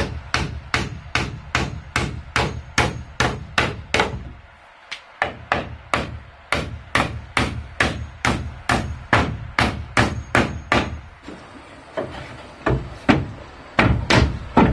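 A hammer nailing a wooden trim strip onto a plank wall, with steady blows about three a second. There is a short break about four seconds in, and the blows come slower and scattered near the end.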